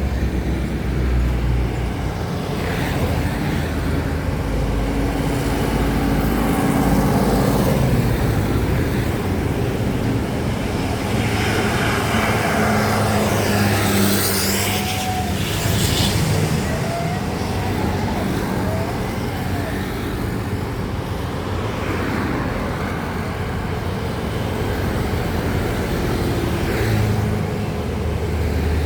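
Heavy road traffic: trucks and other motor vehicles driving past, engines running steadily. One vehicle passes close about halfway through with a swelling rush of tyre and wind noise.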